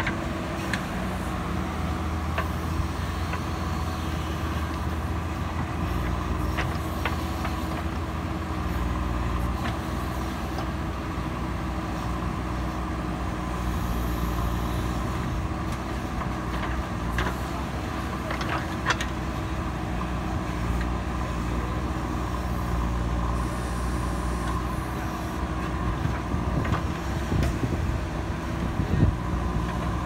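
JCB 3DX Super backhoe loader's diesel engine running steadily as the backhoe digs a trench, with a few sharp clanks near the middle and end.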